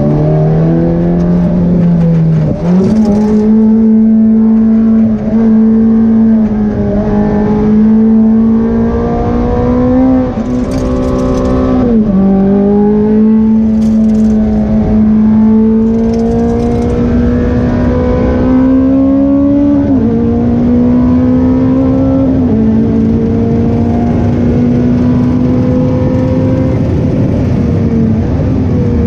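Ferrari F430 Challenge race car's V8 engine heard from inside the cockpit, pulling hard at speed. Its pitch climbs steadily in long pulls, broken about five times by quick gear changes.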